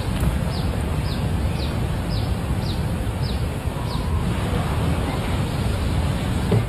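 Outdoor ambience with a steady low wind rumble on the microphone. A bird repeats a short, high, falling call about twice a second, stopping about four seconds in.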